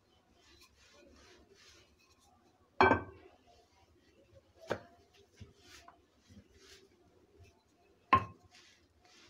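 Wooden rolling pin rolling out naan dough on a board: soft repeated swishing strokes, with two sharp wooden knocks about three seconds in and near the end, and a lighter one in between, as the pin is put down and picked up.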